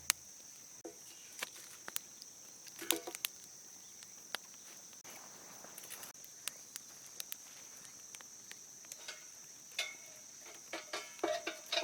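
Wood campfire crackling faintly with scattered small pops and snaps, over a steady high-pitched hiss. A quick run of light clicks and knocks comes near the end.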